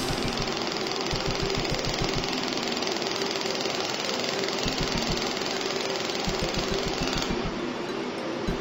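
Pulsed laser welder firing a rapid, regular train of ticks as its pulses strike a metal plate, over a steady hiss.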